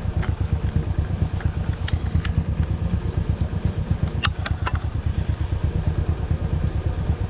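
Motorcycle engine running steadily with an even, rapid low beat. A few sharp clicks come a little past halfway.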